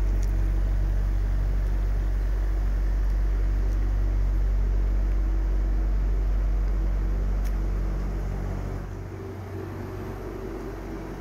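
Refrigeration unit of a reefer semi-trailer running steadily, a low, even engine hum. It drops noticeably in level about eight seconds in.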